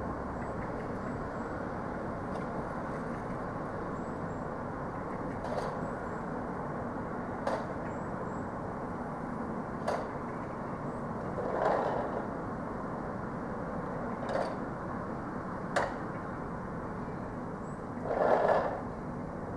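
Loading noise from home delivery vans in a supermarket goods yard: scattered knocks and bangs over a steady background hum, with two louder, longer knocks about twelve and eighteen seconds in.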